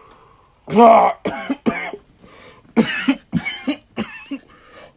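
A man in a coughing fit: one loud cough, then a string of short, harsh coughs, about ten in all.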